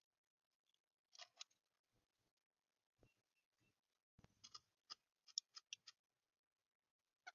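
A bird moving about inside a wooden nest box: faint, irregular scratches and taps, bunched about four to six seconds in.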